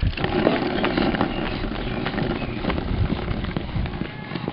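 Skateboard wheels rolling on asphalt under a riding pug: a steady gritty rumble with small clicks, starting abruptly as she hops on and fading near the end.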